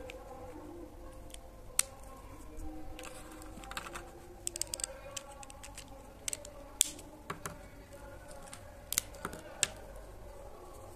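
Plastic marker caps clicking and marker barrels tapping as markers are put down, picked up and uncapped on a wooden table: a scatter of sharp clicks, some in quick clusters of three or four.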